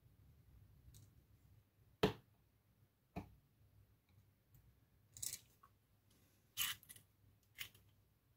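Small sharp clicks and taps of steel tweezers and tiny lock pins against a brass lock plug and a wooden pin tray as the lock is gutted pin by pin. Five separate clicks: the loudest about two seconds in, another a second later, then three lighter ones spaced a second or so apart.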